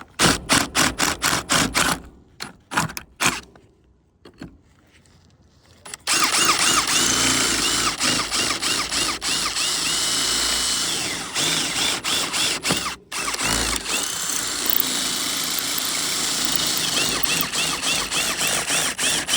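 A power drill boring holes through the car's sheet-metal roof to take threaded inserts, running in long steady stretches with a chirping squeal from the bit. It stops briefly partway through. It is preceded by a quick run of clicks and a short quiet spell.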